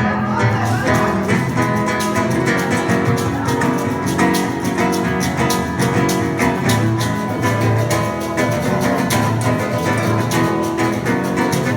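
Acoustic guitar strummed in a steady rhythm, with sharp hand-percussion strokes that fit bongos playing along.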